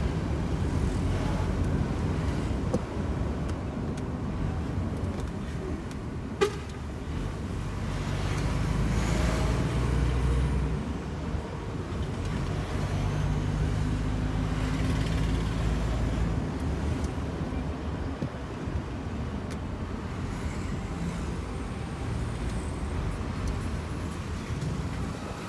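DAF truck driving under way: a steady low diesel engine and road rumble whose pitch shifts now and then, with a single sharp click about six seconds in.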